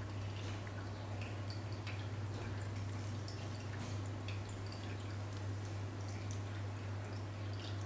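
Faint, irregular soft clicks and wet squishes as a metal spoon scoops spinach and ricotta filling and presses it into pasta shells, over a steady low hum.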